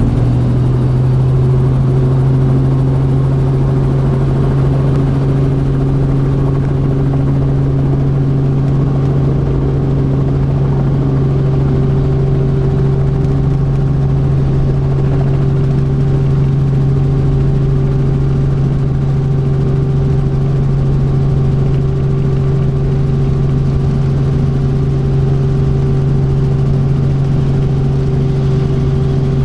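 Robinson R44 Raven II helicopter heard from inside the cabin as it lifts off and climbs away: a steady, loud drone of its six-cylinder Lycoming engine and main rotor. About ten seconds in, the tones above the main drone shift slightly.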